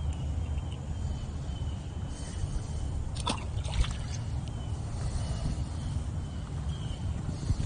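A released bluegill hitting the water at a shallow pond edge: a brief splash about three seconds in, over a steady low rumble.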